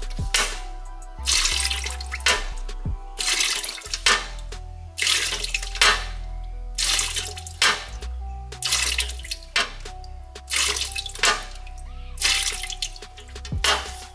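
Automatic transmission fluid pouring and dripping from the loosened, tilted pan of a 6L80 transmission into a drain pan. Background music with a steady beat, about one stroke a second, plays over it.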